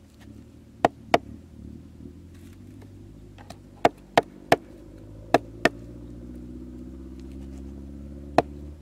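Cleaver chopping raw meat on a wooden log: eight sharp chops in short clusters, with the blade striking through into the wood. Under them a low engine hum gradually grows louder.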